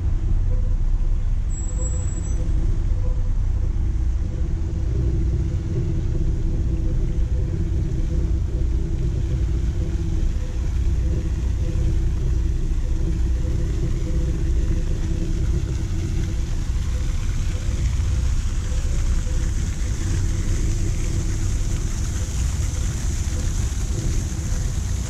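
Street ambience: a steady low rumble of road traffic with a constant hum, and no sudden events.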